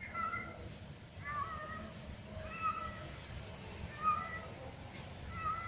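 A cat meowing over and over, about five short calls a little over a second apart.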